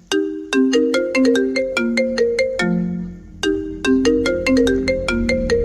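Phone ringtone: a short melody of struck, marimba-like notes, the phrase playing twice with a brief pause about three seconds in.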